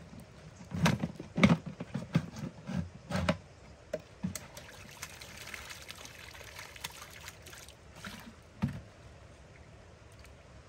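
Water splashing and trickling: a run of irregular splashes and knocks over the first few seconds, a softer trickle in the middle, and one more splash near the end.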